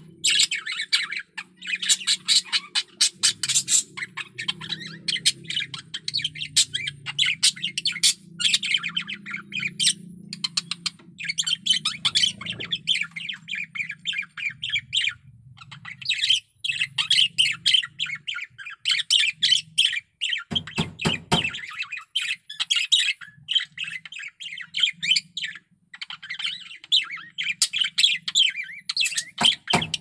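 Male budgerigar warbling: a near-continuous fast chatter of clicks, chirps and squawks, the song of a cock bird in breeding condition. A brief low rustle a little after two-thirds of the way through.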